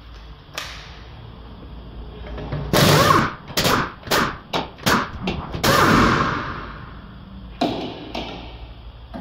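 Cordless impact wrench hammering at a subframe bolt in a run of short trigger bursts, the first and last longer, with a few sharp clicks of the tool before and after.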